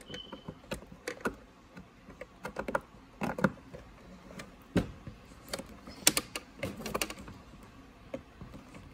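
Irregular clicks and light knocks of a refrigerator ice maker assembly being handled and fitted back into place.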